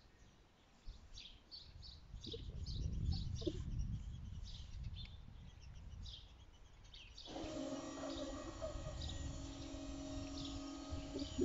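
Small birds chirping over a low outdoor rumble. About seven seconds in, the level-crossing barrier drives start up with a steady motor hum as the red-and-white half-barrier booms swing down.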